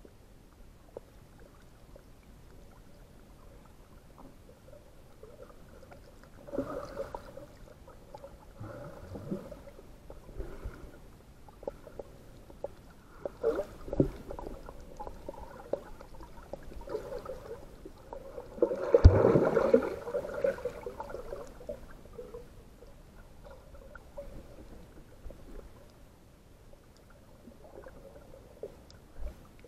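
Muffled water sounds: sloshing and gurgling against the camera, with a few irregular louder surges, the loudest about two-thirds of the way through.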